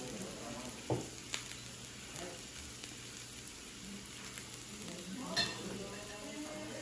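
Steady sizzling of food cooking on a small tabletop grill plate, with a few light clicks.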